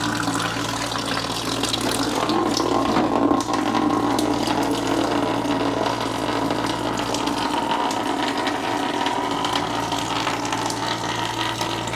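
Sewer water draining steadily out of a cut-open drain pipe and splashing into a bucket.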